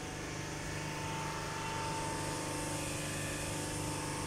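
A steady machine-like drone with a constant hum and a light hiss, picked up by a smartphone's microphone while filming.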